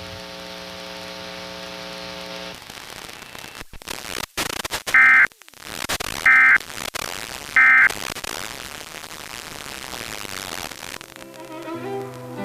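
Three short bursts of Emergency Alert System end-of-message data tones, the harsh digital screech that closes an alert, about a second and a half apart. They come over radio static and hiss. A steady buzzing hum fills the first couple of seconds, and music comes in near the end.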